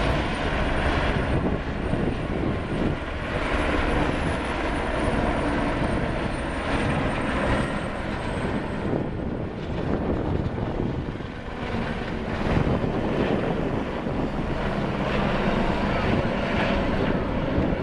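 A group of helicopters flying past together, their rotors and engines making a steady, continuous drone.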